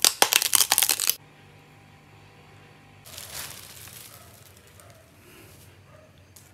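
A loud, rapid crackling crunch for about a second as the shell of a cooked giant prawn is bitten into. Then, from about three seconds in, a faint rustling of a plastic bag as a raw giant prawn is handled.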